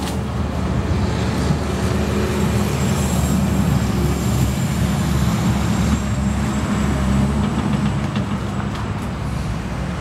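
Caterpillar skid steer loader's diesel engine running steadily as the machine drives, with a faint thin high whine through the middle of the stretch.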